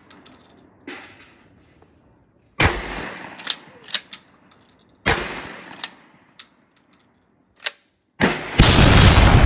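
12-gauge pump-action shotgun firing three shots, the first fainter, each report ringing out for about a second. Shorter clacks after the shots are the pump being worked to chamber the next shell. Near the end a loud, continuous rush of noise begins.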